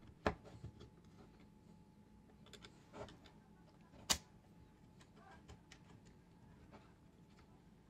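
Plastic mount parts being handled and fitted together: a few faint clicks and taps, with one sharper click about four seconds in.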